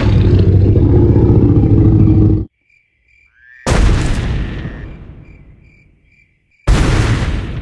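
A loud, low sustained sound that cuts off abruptly about two and a half seconds in, followed by two sudden loud booms that each die away over a couple of seconds. Faint crickets chirp in the gaps between them.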